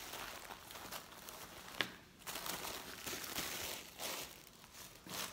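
Crinkling of plastic wrapping and rustling of fabric as a shirt is handled and unfolded, with one sharp tick a little under two seconds in.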